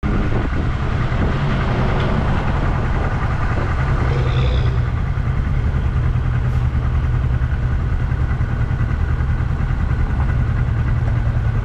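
1982 Yamaha XS400's air-cooled parallel-twin engine running at a steady, fairly constant speed while the motorcycle is ridden, heard as a dense low rumble.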